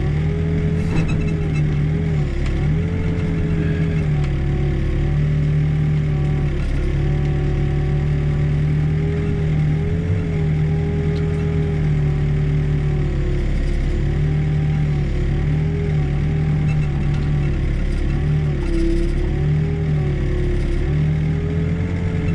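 Backhoe diesel engine running at working speed. Its pitch sags briefly and recovers again and again as the hydraulics take load while digging.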